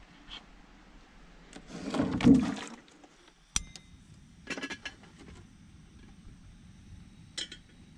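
Water splashing into a stainless steel kettle for about a second, then a sharp click as the gas canister stove is lit, followed by a few metal clinks as the kettle is handled on the burner.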